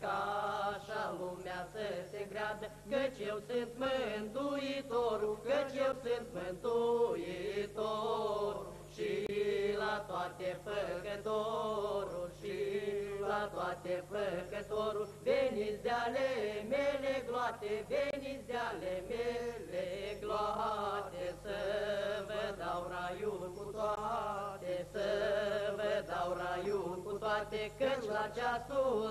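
Slow, chant-like unaccompanied singing of a religious song, the voice holding and gliding between notes, over a steady low hum.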